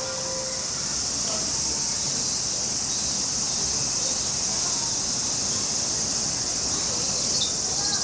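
Steady high-pitched chorus of insects trilling, with a few short high chirps near the end.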